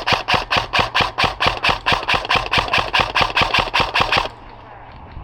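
Airsoft electric gun (AEG), likely the Double Eagle M917G UTR45 submachine gun, firing a steady string of sharp shots at about five a second, which stops about four seconds in.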